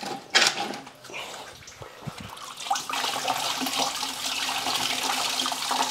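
Engine coolant gushing out of the open block drain port of a Honda D16 engine and splashing onto the floor: a steady watery splatter that grows fuller about two and a half seconds in. A couple of soft knocks come just before.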